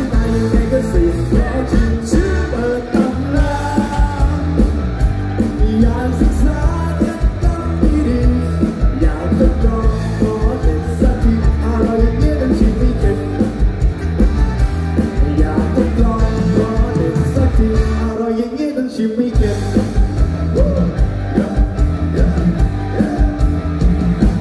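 A man singing into a handheld microphone over loud amplified rock-style accompaniment through a PA system. The bass and drums drop out for about a second about three-quarters of the way through, then come back in.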